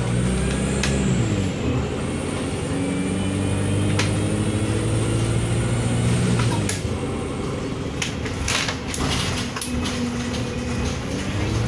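Wright StreetLite bus's diesel engine pulling through its Voith automatic gearbox. The engine note climbs and drops at gear changes about a second and a half in and again near seven seconds, then runs lower. A few rattles and clicks from the saloon come around eight to ten seconds.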